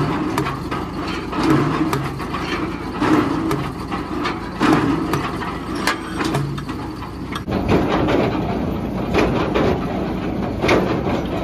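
Bucyrus-Erie 22W cable tool rig drilling: the engine runs while the drill line lifts and drops the tools in a steady rhythm, a heavy knock about every second and a half as the bit strikes.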